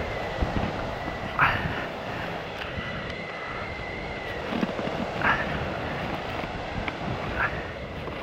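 Bare feet crunching into deep snow, three short steps a couple of seconds apart, over a steady rumbling background noise.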